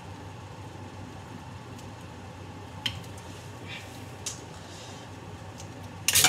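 Spinning ceiling fan with K'nex rod blades, a steady low hum with a few faint ticks. Near the end comes a loud, brief clatter.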